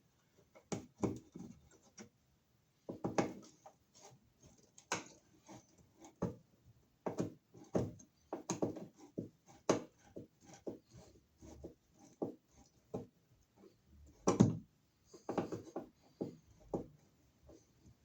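Irregular clicks, knocks and scrapes of a wall receptacle and its wires being handled at the electrical box.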